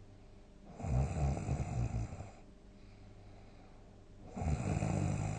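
A person snoring loudly: two long, rough snores, one starting about a second in and the next about four seconds in, still going at the end.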